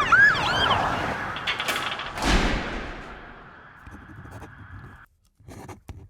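Police siren sound effect in a rapid yelp, fading out within the first second. Then two sharp bangs about half a second apart, their echo dying away until the sound cuts off.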